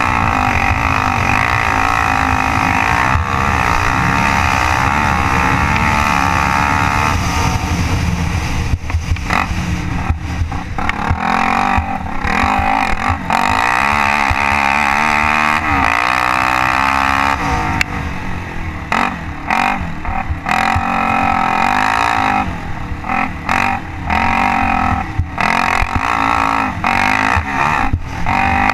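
Can-Am DS 450 ATV's single-cylinder four-stroke engine pulling hard across sand. Several times in the second half the revs drop and climb again as the throttle is eased and reopened.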